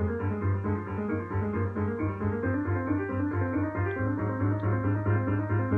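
Piano playing quick, dense figures of many overlapping notes over a steadily repeated low bass note.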